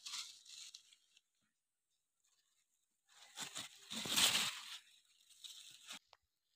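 Kitchen knife cutting through pumpkin vine stems among the large leaves: a short cutting sound at the start, a louder cut about four seconds in, and faint leaf rustling near the end.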